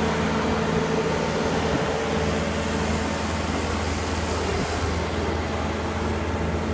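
Bobcat skid-steer loader's diesel engine running steadily as the machine is driven and tipped up onto two wheels.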